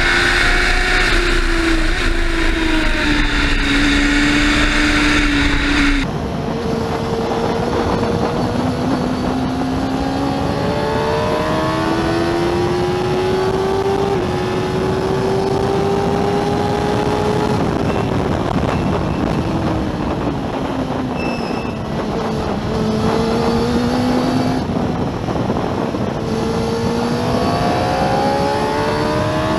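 Racing sidecar outfit's engine heard onboard at speed, wind rushing over the microphone. The pitch climbs in short steps through the gears, drops away as it slows about two-thirds of the way through, then climbs again. About six seconds in the sound changes abruptly to another onboard recording with less wind hiss.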